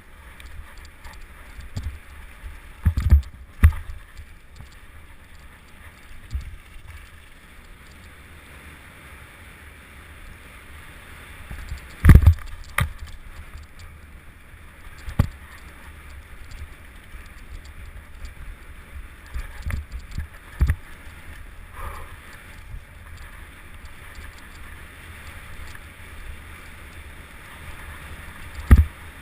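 Mountain bike riding downhill over rough ground: a steady rush of wind and tyre noise, broken by occasional hard thumps from bumps, the loudest about twelve seconds in and near the end.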